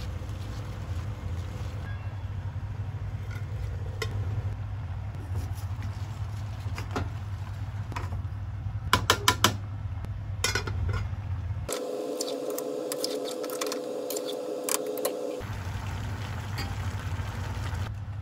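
Cooking at a saucepan on a gas stove: a steady low rumble with scattered light clicks, and a quick run of sharp metal clinks about nine seconds in, a utensil striking the aluminium pan. For a few seconds past the middle the rumble stops and a steady hum takes its place.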